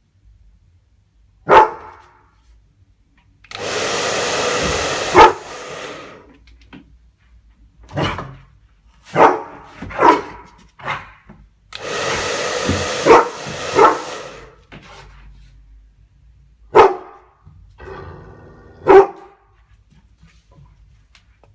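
A dog barking in single sharp barks, about ten in all, at a hair dryer that blows twice for two or three seconds at a time.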